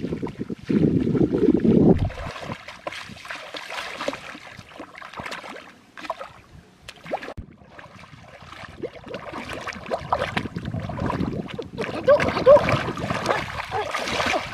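Muddy shallow water splashing and sloshing, first around wading legs and then as hands dig and scoop through thick mud, in irregular splashes that grow louder and busier near the end. A brief loud low rumble sounds about a second in.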